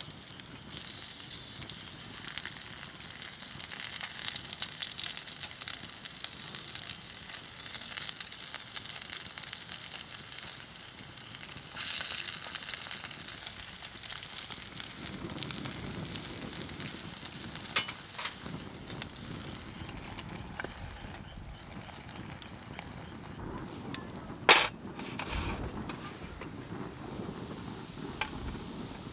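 Chikuwa deep-frying in oil in a hot sandwich maker over a campfire: a steady high sizzle with fire crackle, a brief louder swell of sizzling and a few sharp knocks, the loudest near the end.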